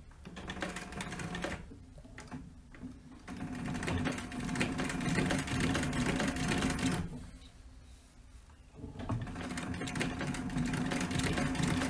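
Singer 111W152 industrial walking-foot, triple compound feed sewing machine stitching through leather in controlled bursts: a few short slow runs at first, a steadier run from about three seconds in, a stop of about two seconds around the middle, then it sews again.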